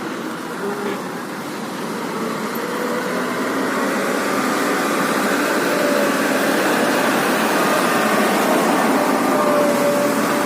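Vehicle engine running steadily in slow traffic, growing louder over the first half and then holding.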